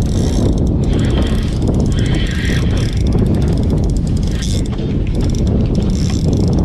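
Wind buffeting the microphone in a steady rumble, with a spinning reel being cranked as line is wound in.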